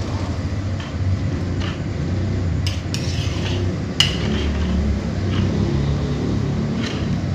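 Metal ladle stirring a coconut-milk curry in a wok, clinking and scraping against the pan several times, with the sharpest knock about four seconds in. A steady low rumble runs underneath.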